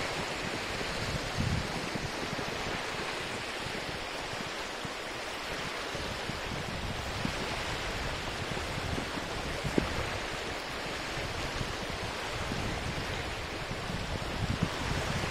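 Small lake waves breaking and washing up on a sandy beach: a steady rush of surf with a few brief splashes, one a little sharper about ten seconds in.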